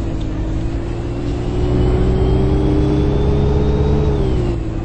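Bus drivetrain heard from inside the bus while it moves: a steady low hum with a thin high whine that climbs slowly, then drops away about four seconds in.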